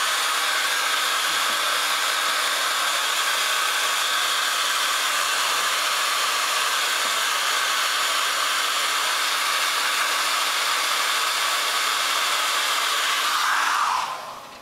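Small handheld hair dryer blowing steadily, then switched off near the end, its sound dying away.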